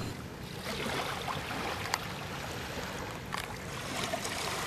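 River water lapping and trickling around a small boat during net-laying, a steady wash with a few faint knocks.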